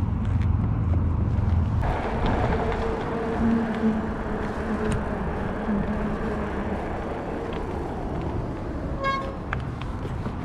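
Road traffic passing alongside a bicycle, engines and tyres over steady wind rush on the microphone; the sound changes abruptly about two seconds in. A short pitched beep, a car horn toot, sounds about nine seconds in.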